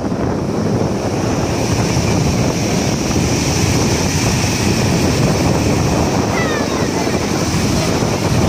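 Muddy floodwater pouring over a low weir and churning in the rapids below: a loud, steady rush of water.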